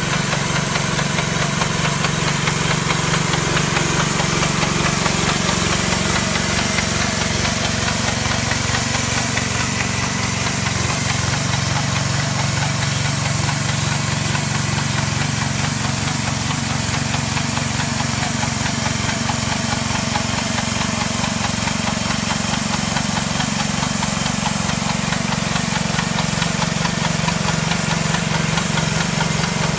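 Small petrol engine on an airless line-striping paint sprayer running steadily at constant speed. A steady hiss over it comes from the paint spray guns.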